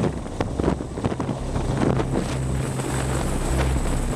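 CH-53 heavy-lift helicopter hovering, its rotor and engine noise mixed with rotor downwash buffeting the microphone.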